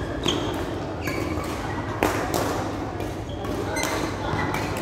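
Badminton rackets striking the shuttlecock in a doubles rally: a few sharp cracks a second or two apart, the loudest about two seconds in.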